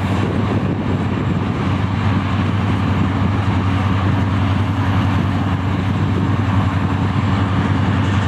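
Class 55 Deltic diesel locomotive, with twin Napier Deltic two-stroke opposed-piston engines, running with a steady low drone.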